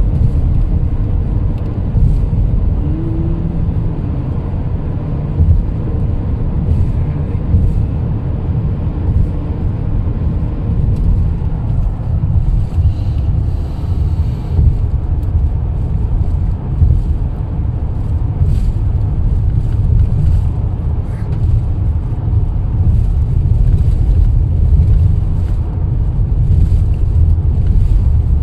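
Steady low rumble of a car's tyres and engine on a highway, heard inside the cabin while driving.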